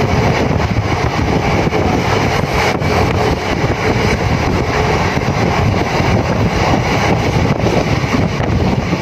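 Circar Express passenger train running at speed, heard from inside a carriage by an open window: a steady rush of wheel and track noise mixed with wind buffeting the microphone.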